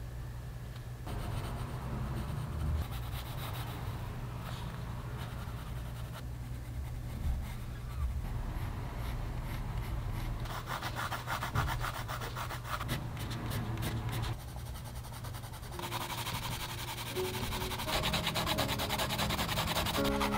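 Colored pencil shading on the paper of a coloring book: rapid, scratchy back-and-forth strokes over a steady low hum. Soft music comes in near the end.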